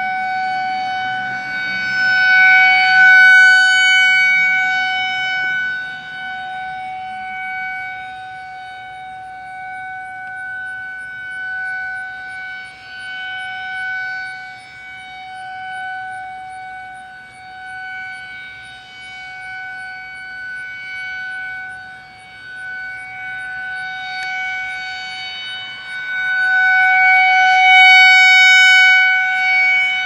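Federal Signal 2001-SRN DC-powered electromechanical warning siren sounding a loud, high-pitched steady tone during a siren test. The pitch holds steady while the volume swells and fades as the rotating horn sweeps around, loudest about three seconds in and again near the end.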